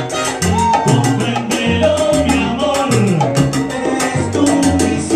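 A salsa orchestra playing live, with timbales and bongos driving a busy percussion rhythm under a trombone section and a moving bass line.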